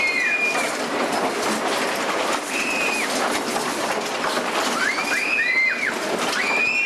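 Spinning teacup ride running: a steady rumble of the cups rolling over the platform, with short high squeals that rise and fall every couple of seconds, several together about five seconds in.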